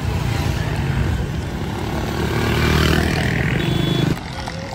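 Steady low rumble of outdoor street noise, swelling about two to three seconds in and dropping off abruptly near the end.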